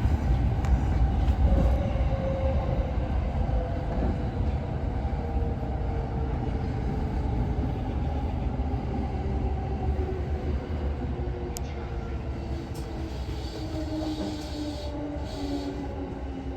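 Train running on the track: a steady low rumble that slowly fades, with a faint whine that drifts lower in pitch.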